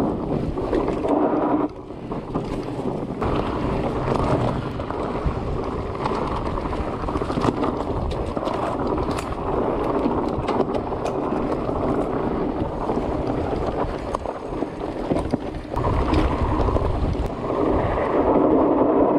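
Mountain bike riding on a dirt trail, heard from a handlebar camera: wind buffeting the microphone over the tyres rolling on the ground, with many sharp clicks and rattles from the bike over rough, rutted ground in the middle.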